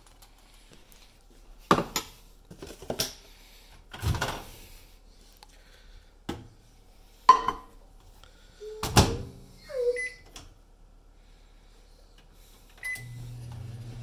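Bowl and microwave-door handling: several knocks and clatters, with one loud clack about nine seconds in as the door shuts. Two short keypad beeps follow, and near the end the Panasonic inverter microwave oven starts running with a steady low hum.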